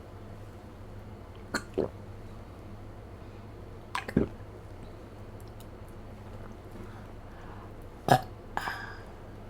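A woman burping three times, each burp short, the last one the loudest.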